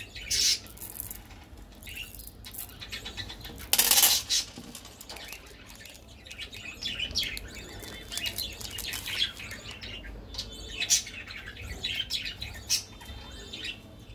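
Foil wrapper of a chocolate-coated wafer bar crinkling and tearing as it is unwrapped, with a loud rip about four seconds in and scattered crackles and clicks from the handling. Birds chirp in the background.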